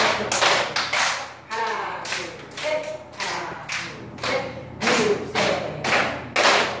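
A group of people clapping in rhythm, about two to three claps a second, with a woman's voice calling out between the claps.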